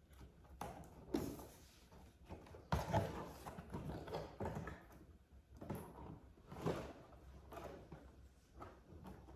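Cardboard box and packaging being handled and pulled open: irregular rustling and scraping with a few knocks.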